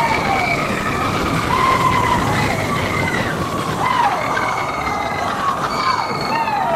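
Expedition Everest roller coaster train running along its track: a loud, steady rushing rumble, with high pitched tones sliding up and down over it.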